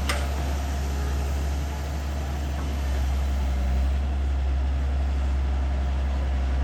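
Diesel engine of an IHI long-reach excavator running steadily, with a single sharp clank just at the start.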